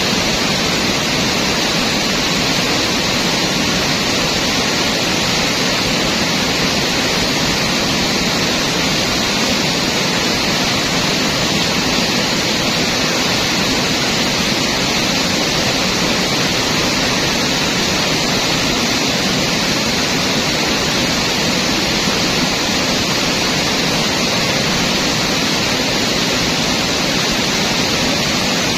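Fast river water rushing over rapids, a loud and steady roar without a break.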